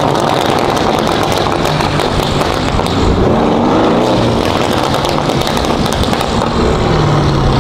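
Lamborghini sports car's engine and exhaust under way at low speed, its pitch rising and falling twice as it accelerates and lifts off, then holding steady near the end.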